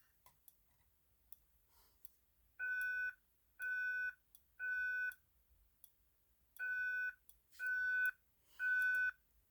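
Fire alarm speaker strobe, set to its louder tone, sounding the evacuation signal in the temporal-three pattern. It starts about two and a half seconds in and gives two groups of three half-second beeps, a pause of about a second and a half between the groups.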